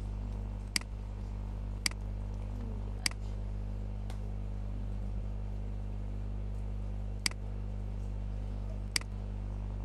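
Computer mouse clicking: about five short, sharp clicks at uneven intervals, with a fainter one between them, over a steady low electrical hum.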